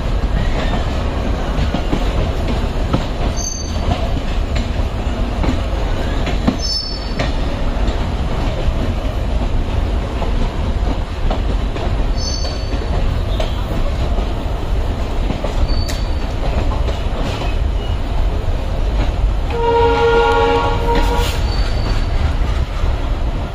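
Indian Railways passenger coaches rolling past over jointed track and points, with a steady deep rumble, clickety-clack and several brief high wheel squeals. About 20 s in, a train horn sounds once for under two seconds.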